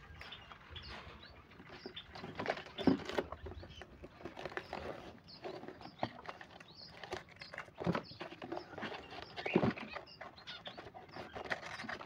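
Irregular rustling, scraping and knocking of a cardboard box as a hand gropes inside it for zebra doves (perkutut), with the birds scrabbling and fluttering against the cardboard.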